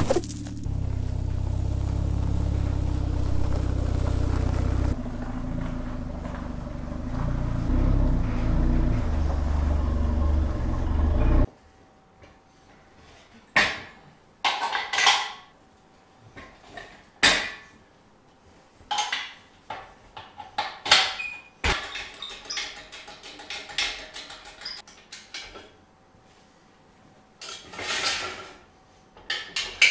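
A kick knocks a cardboard box at the start, followed by a steady low drone lasting about eleven seconds that stops suddenly. After that come scattered sharp metal clanks and knocks as a steel folding engine crane is put together.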